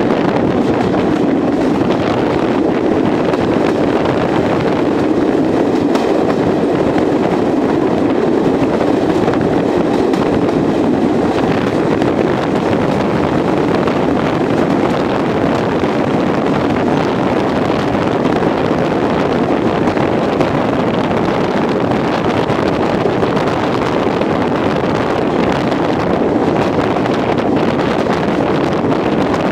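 Steady wind noise on the microphone at the window of a moving train, over the train's running noise.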